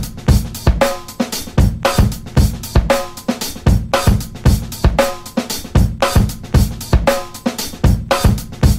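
Background music led by a drum kit: a steady beat of kick drum, snare and cymbals, with a short repeating melodic figure.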